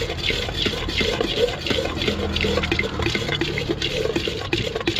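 Bhel being mixed in a steel pot: puffed rice, onion and chutney worked together, giving a dense run of small scrapes, clicks and wet squelches against the steel.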